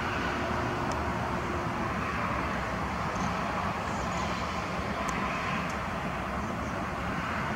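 Steady outdoor roar of distant traffic, with a few faint, short, high chirps.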